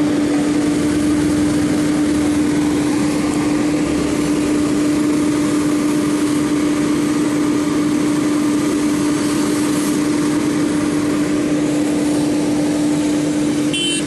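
Hydraulic excavator's diesel engine running steadily close by, a constant hum over a dense engine noise.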